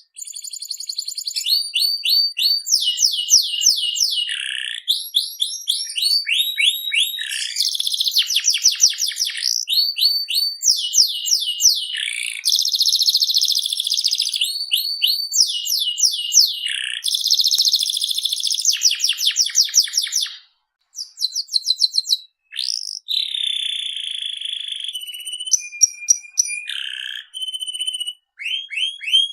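Domestic canary singing a long continuous song: rapid trilled rolls of repeated notes alternating with sweeping whistled phrases, high-pitched, with a couple of brief pauses about two-thirds of the way through.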